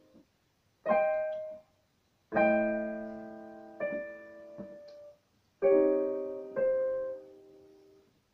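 Digital piano playing slow chords one at a time: a short chord, then several held chords that ring and fade, with clean silences between, the last dying away near the end.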